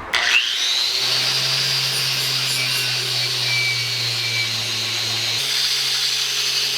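Electric angle grinder spinning up with a quick rising whine, then running at a steady speed with a high whine and a low hum; the sound shifts slightly about five seconds in.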